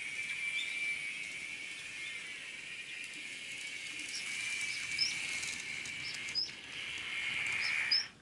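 N-gauge model of a Keihan 2000-series train running over the track and turnouts: a steady high motor-and-wheel whine with short high squeaks every second or so, growing louder as the train comes close, then cutting off abruptly at the end.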